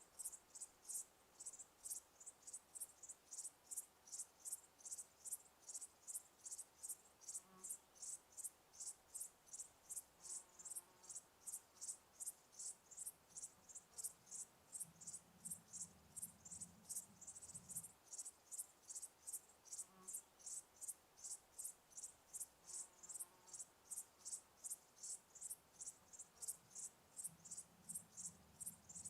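Cricket chirping steadily, even high-pitched chirps about three a second, with a faint low rumble twice in the background.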